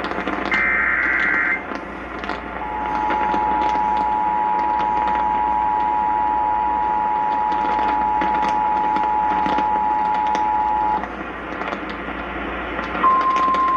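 Emergency Alert System broadcast over radio for a severe thunderstorm warning. The last screechy data burst of the digital header ends about a second and a half in, then the two-tone EAS attention signal sounds steadily for about eight seconds. Near the end a single steady alert tone begins, over a constant hiss of radio noise.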